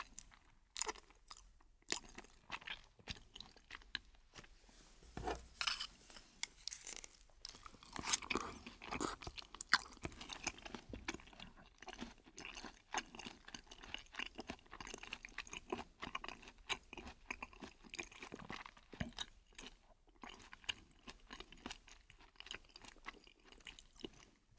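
A person chewing a meal of noodles and fried chicken close to the microphone, with many short, irregular mouth smacks and crunches.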